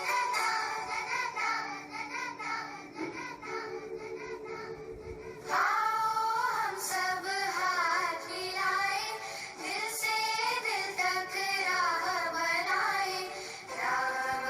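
A child singing a song over backing music, getting louder about five and a half seconds in.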